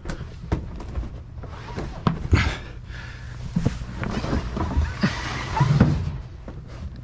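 Green rubbery pit carpet of an AMF 82-30 pinsetter being pushed and flexed around the pit board by gloved hands: irregular scraping, flapping and knocks, loudest about two seconds in and again around five to six seconds in. A steady low hum runs underneath.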